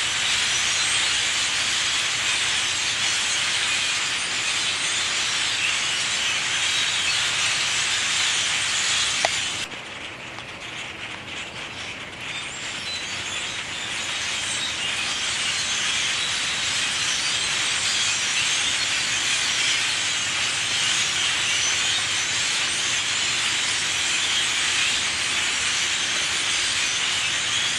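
A huge flock of birds massed in a tree, chattering all at once in a dense, steady din. About ten seconds in the whole flock falls abruptly quieter, then the chatter builds back up over the next few seconds.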